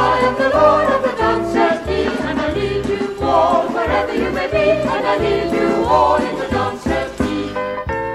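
Religious vocal group singing in harmony over an instrumental accompaniment with a steady, pulsing bass line. Near the end the voices drop away and the accompaniment carries on.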